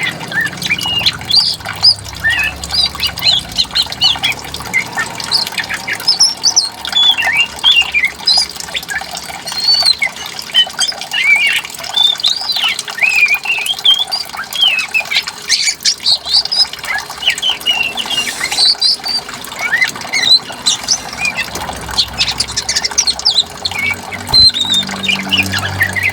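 Several songbirds chirping and calling in quick, overlapping phrases over steadily flowing water.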